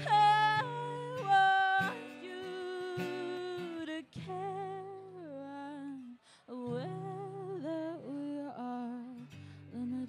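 A woman singing live with acoustic guitar: long held notes with vibrato, loudest in the first two seconds, over strummed chords.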